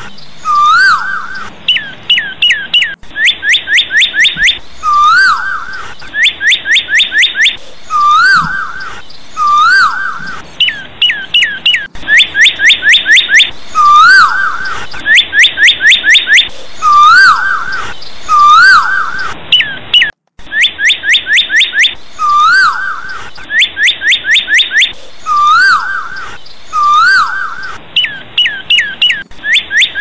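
A small songbird singing close by: quick runs of sharp, falling whistled notes alternating with short rising-and-falling whistles, repeated over and over, breaking off briefly about two-thirds of the way through.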